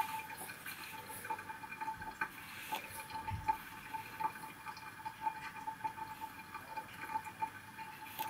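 Granulated sugar being spooned out of a cup into a small stainless-steel saucepan: soft scraping of the spoon and trickling of sugar, with faint small clicks and one dull knock about three seconds in, over a faint steady tone.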